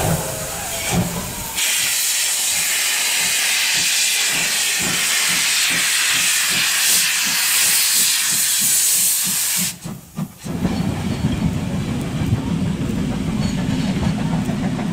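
Class 50 steam locomotive blowing a loud, steady hiss of steam from around its cylinders as it starts, with regular low exhaust chuffs underneath. About ten seconds in the hiss cuts off and gives way to a steady low rumble from the train.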